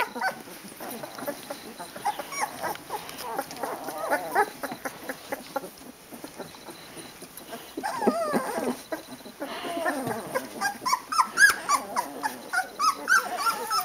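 Very young Boerboel puppies whimpering and squeaking: many short, wavering cries, a cluster about eight seconds in and more near the end.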